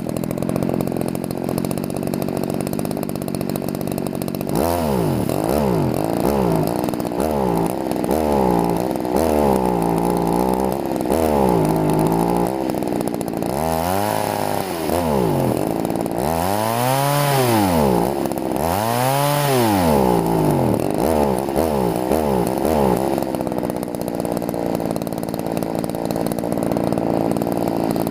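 Poulan two-stroke chainsaw engine idling, then from about four seconds in revved again and again, its pitch climbing and falling with each squeeze and release of the throttle, as the carburettor mixture is being tuned.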